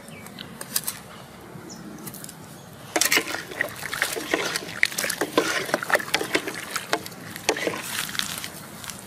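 Wooden ladle stirring an aluminium pot of water with fish and papaya chunks, knocking against the pot and sloshing the water. The clatter of knocks starts about three seconds in and goes on until near the end.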